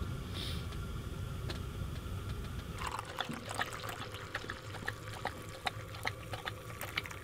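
Coffee poured from a small camp pot into a stainless steel cup, the pouring starting about three seconds in, with a scatter of small ticks.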